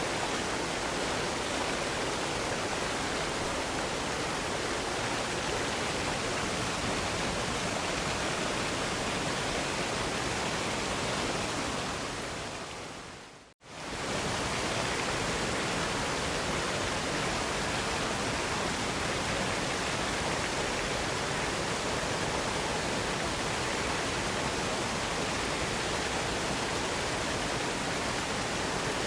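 Steady rushing of falling water from a waterfall. About thirteen seconds in, it fades out to silence for a moment and then comes straight back at full level.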